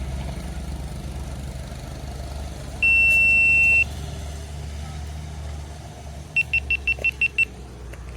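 Electronic beeper sounding one long high beep, then a quick run of seven short beeps at the same pitch, over a low steady engine-like hum.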